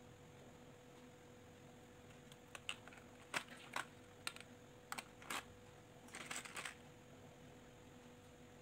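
Light clicks and rattles of small plastic craft beads and their plastic compartment tray being handled while beads are strung onto elastic cord. The clicks come scattered through the middle, with a short rattle of several clicks about six seconds in, over a faint steady hum.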